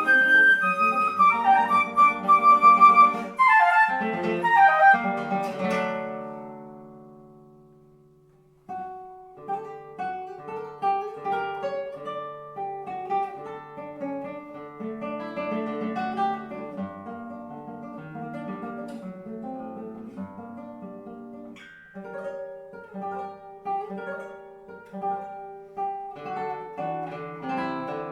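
Flute and classical guitar playing together, the flute carrying the melody over the plucked guitar. After a falling run the sound rings away to a brief pause, and the guitar then carries on alone with a free solo passage of plucked notes and chords.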